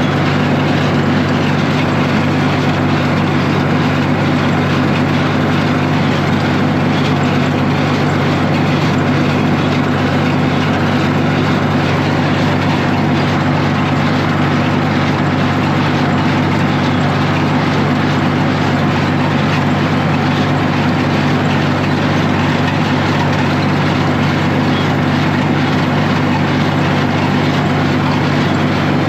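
Tractor engine running steadily at a constant speed, its hum unchanging throughout, as when working a hay baler.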